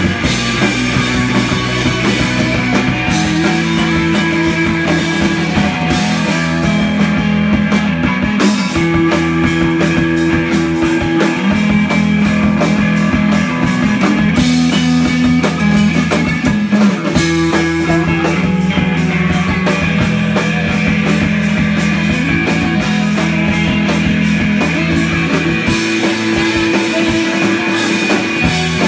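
A live rock band playing loud: electric bass, electric guitar and drum kit together, with held bass notes changing every second or two.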